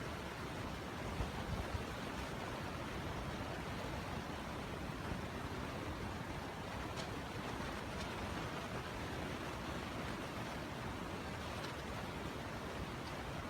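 Steady rushing wind noise on the microphone, with a few faint ticks.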